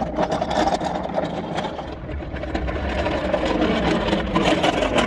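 Steel engine crane being pushed along at a run, its castor wheels rattling and rumbling over rough yard ground with a dense stream of small clicks.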